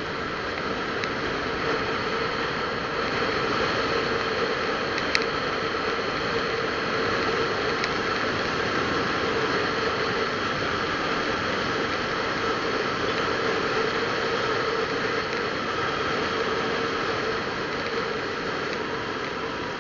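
Steady engine drone under a rush of wind and road noise, recorded from a moving vehicle, with one brief sharp click about five seconds in.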